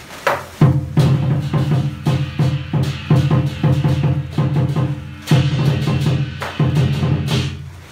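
Lion dance percussion: a big drum beaten in quick, steady strokes, with cymbal crashes breaking in a few times.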